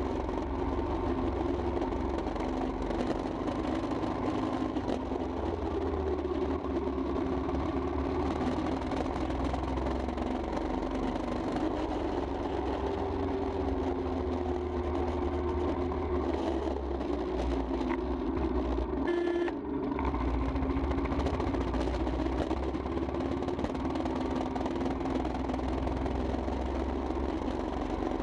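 Royal Enfield Himalayan's single-cylinder engine running under way, its pitch rising and falling with road speed, over a steady low rumble of wind. Its sound dips briefly a little past two-thirds of the way through.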